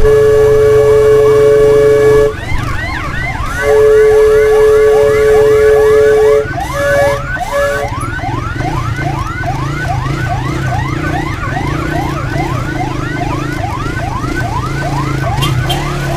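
Emergency siren in fast yelp mode, sweeping up in pitch about twice a second. Over it for the first half, a loud steady horn tone sounds, breaks off, comes back, then gives two short toots about seven seconds in. A vehicle engine hums underneath.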